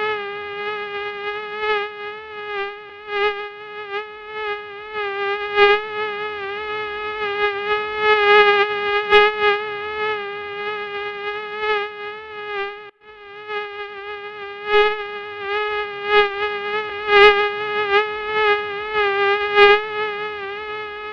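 Mosquito wing whine: a steady, high-pitched hum that wavers slightly in pitch and swells and fades in loudness as the insect moves. It drops out briefly about 13 seconds in.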